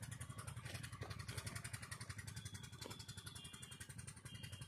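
A small engine running steadily and faintly, a low drone with an even, rapid pulse.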